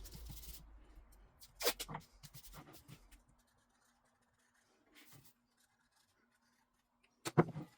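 Pen or pencil writing on wood: short scratchy strokes as the cut leg pieces are labelled, then quiet with a faint steady hum, and a few sharp knocks near the end.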